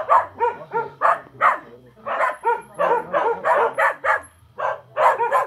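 A dog barking over and over, short sharp barks about three a second.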